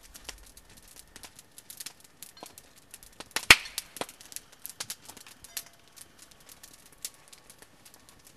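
Scattered sharp clicks and light knocks at irregular intervals, with one loud sharp knock about three and a half seconds in.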